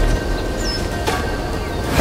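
Background music with steady sustained tones and a regular beat about once a second. Near the end a rising whoosh swells up to a peak.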